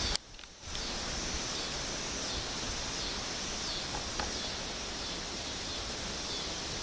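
Storm wind blowing as a steady, even hiss, with a brief dropout just after the start.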